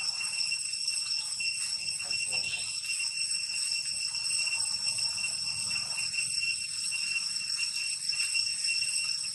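Cicadas droning steadily in the forest: an unbroken high-pitched buzz that neither rises nor falls.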